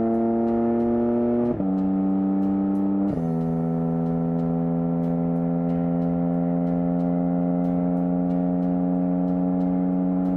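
Porsche 718 Cayman GT4 RS's 4.0-litre flat-six accelerating, with two quick upshifts of the dual-clutch gearbox about one and a half and three seconds in, each dropping the pitch. After them the engine note climbs slowly and steadily under load.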